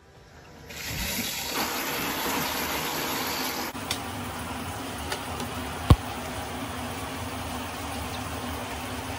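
Shower running: a steady rush of water that starts about a second in. A single sharp knock comes a little past halfway.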